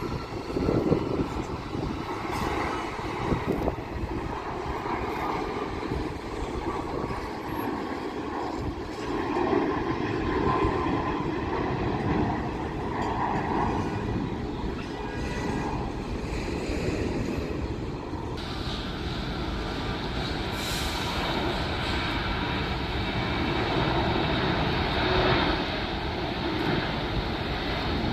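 Jet airliner engines rumbling steadily, with a higher whine that comes in suddenly about two-thirds of the way through and holds.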